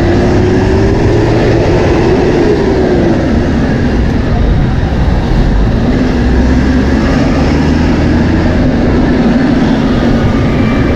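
Steady rushing wind and road noise on the microphone of a moving road bike, with a motor vehicle's engine hum nearby that rises and falls in the first few seconds and comes back lower from about halfway through.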